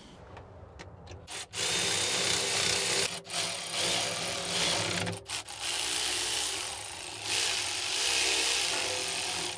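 A power tool running in long stretches, a rasping whir broken by short pauses about three and five seconds in.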